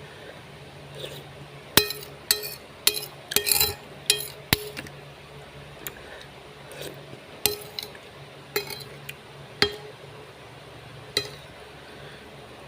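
Eating utensils clinking and tapping against a glass or ceramic dish, a quick run of sharp ringing clinks, then a few scattered ones.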